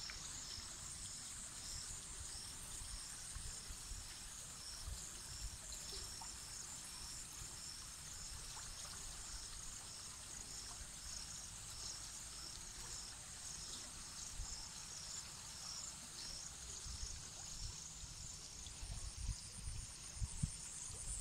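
Insects chirping in the fields: a steady high-pitched trill with a second high chirp repeating about twice a second. Wind rumbles on the microphone, stronger near the end.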